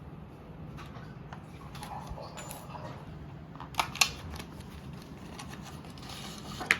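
Hands handling packaging: faint rustling with sharp clicks, two close together about four seconds in and another near the end.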